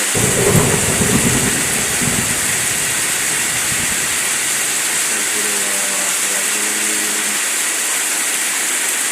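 Heavy rain with strong wind: a steady hiss of rain, with a low rumble of wind buffeting the microphone for the first two seconds. A faint pitched sound comes in briefly after the middle.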